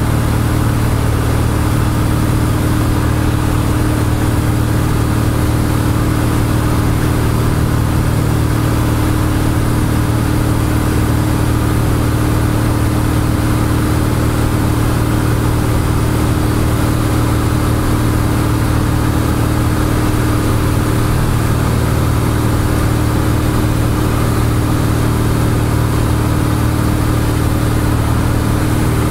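Cessna 172's piston engine and propeller droning steadily in cruise flight, heard inside the cockpit.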